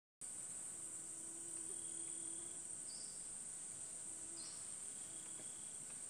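Steady, high-pitched drone of a rainforest insect chorus, with two faint short chirps about three seconds in and again a second and a half later.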